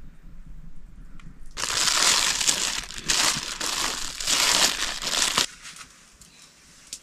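A dense crackling, crunching noise that starts about a second and a half in and cuts off suddenly about four seconds later.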